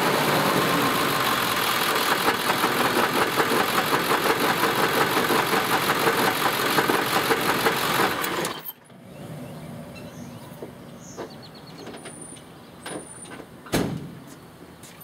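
2000 Ford Powerstroke 7.3-litre V8 turbodiesel running at low rpm with a loud, rhythmic knocking rattle, a noise of unknown cause that fades when throttle is applied. About two-thirds of the way through the engine stops abruptly, leaving faint clicks and a single sharp thump.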